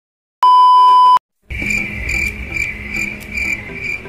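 A loud, steady electronic beep lasting under a second from a film countdown leader. After a brief gap, crickets chirp in a steady rhythm, about three chirps a second, over low background noise.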